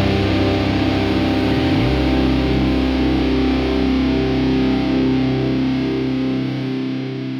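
A rock band's last chord ringing out on distorted electric guitar and bass, with the bass note sliding down about two seconds in. The chord then starts to fade near the end.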